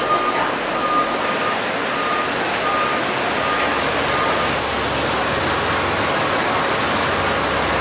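A vehicle's reversing beeper sounding a single-pitched beep about every two-thirds of a second, stopping about four and a half seconds in, over a steady rushing background noise. A low rumble grows stronger after the beeping stops.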